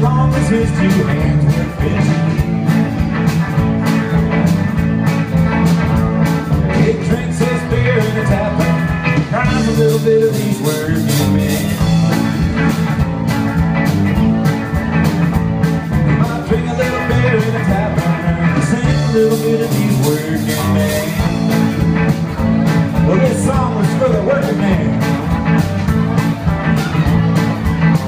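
Live band music: guitars over a drum kit keeping a steady beat, played loud and continuously.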